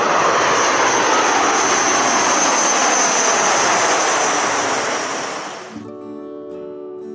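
AG600M amphibious aircraft's four turboprop engines flying past low: a loud rushing roar with a high steady whine, its pitch sliding slowly down as it passes. The sound fades out about five and a half seconds in as acoustic guitar music comes in.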